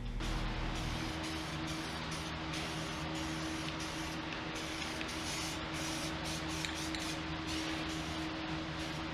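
Aerosol spray can spraying in a series of passes, with a dense hiss broken by many brief pauses, over a steady low hum.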